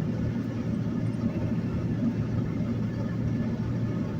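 Steady engine and tyre noise inside a two-wheel-drive vehicle's cabin, driving on a snowy highway.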